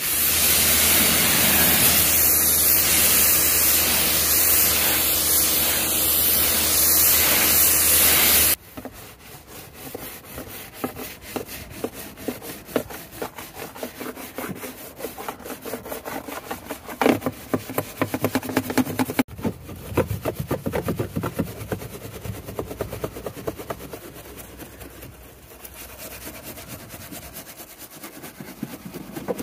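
A pressure washer sprays water steadily over the car, with a low hum under the hiss, and cuts off abruptly about eight seconds in. After that come quieter, rapid scrubbing and rubbing strokes on the car's surface as it is washed.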